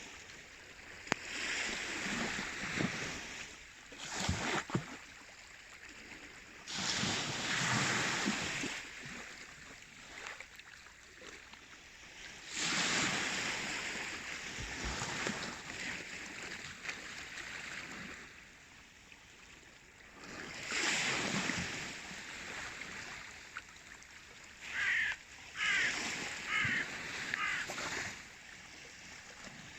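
Baltic Sea waves washing in, the rush of water swelling and ebbing in surges every few seconds. A few short, high-pitched sounds come near the end.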